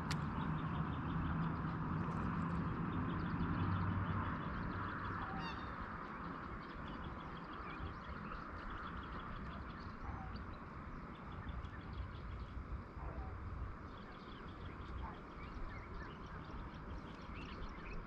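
A steady chorus of animal calls with many short repeated chirps and ticks, over a low rumble that fades after the first few seconds.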